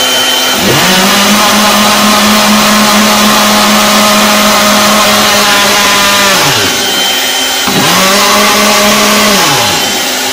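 Kitchen blender motor running on DC from a solar battery setup, switched on twice: it spins up about half a second in and runs steadily for about six seconds, winds down with a falling pitch, then runs again for under two seconds and winds down.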